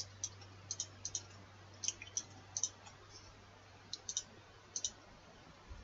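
Computer mouse clicking: about a dozen short, sharp clicks at irregular intervals, many in quick press-and-release pairs, over a faint steady low hum.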